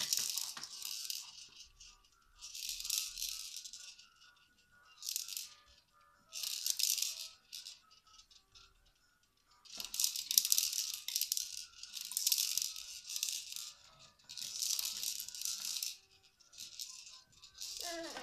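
Plastic beads rattling inside the clear spinning dome toy on a Fisher-Price baby jumper's activity tray, turned by hand in bursts of one to two seconds, about eight times.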